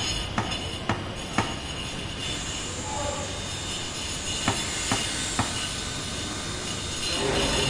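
Construction site ambience: sharp knocks about twice a second in two short runs, over a steady din of machinery that grows louder near the end, with a droning tone.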